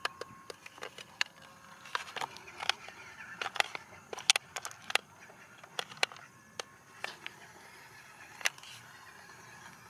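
A run of irregular sharp clicks and knocks, scattered unevenly and dying away after about eight and a half seconds.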